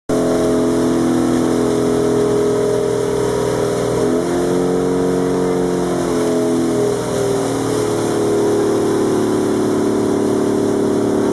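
Engine of a motorized bamboo-outrigger boat (bangka) running steadily underway, its note shifting slightly in pitch about midway, over the rush of water along the hull.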